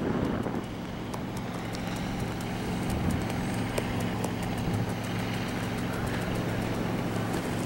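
Steady low engine drone from the parasail tow boat below, heard from up on the line, over light wind with faint scattered ticks.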